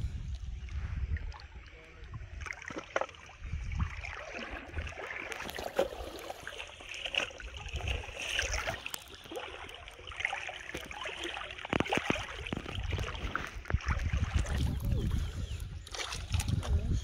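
Shallow muddy water sloshing and splashing irregularly around a person wading through it, with a plastic tub pushed along in it. Wind buffets the microphone near the start and again near the end.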